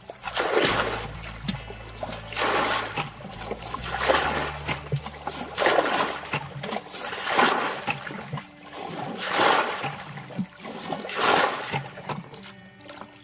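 Water splashing in repeated surges, about one every two seconds, each swelling and fading away.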